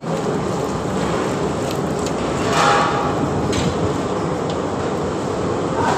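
Steady commercial-kitchen noise, with hot oil frying a poori in a kadai, a swell of louder noise midway, and a few light knocks.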